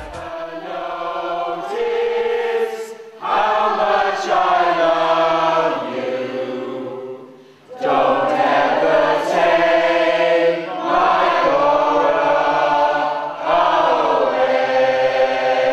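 Mixed choir of men and women singing slowly in long, sustained notes, with a short break between phrases about seven and a half seconds in.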